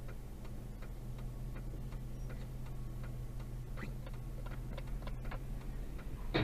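A car's turn-signal indicator ticking steadily, about two clicks a second, over the low hum of the idling engine, heard inside the cabin. A sharper knock comes right at the end.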